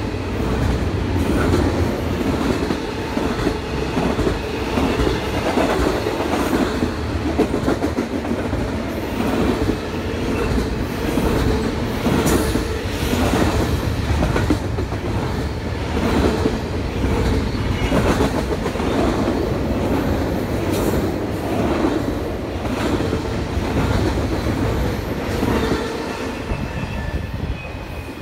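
Double-stack container freight train rolling past close by, its wheels clacking over the rail joints under a steady rumble. The sound falls away near the end as the last car passes.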